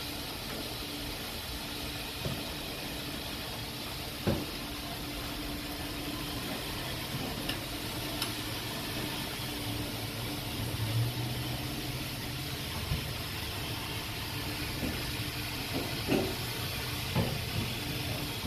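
Self-serve car wash foam brush spraying soapy water in a steady hiss as it is scrubbed along a car's side and wheel. A low steady hum runs underneath, and a few light knocks come around four seconds in and again near the end.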